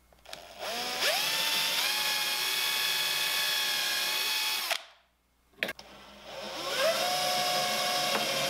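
Cordless drill/driver running at the screw holes of a steel piano hinge on a pine board: it spins up and runs at a steady pitch for about four seconds, stops, then spins up again about a second and a half later and keeps running. A short click falls in the pause.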